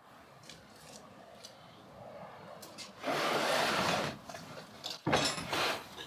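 A rolled vinyl pack holding a steel bucket auger kit being dragged across a pickup's ribbed bed liner and tailgate: a rough scraping rub for about a second, three seconds in, then a shorter one about five seconds in, with light handling clicks around them.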